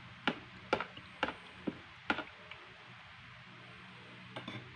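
Metal spoon clinking against the side of a bowl while stirring a liquid soy-sauce marinade: about five sharp clicks roughly half a second apart, stopping a little after two seconds in, with two faint ticks near the end.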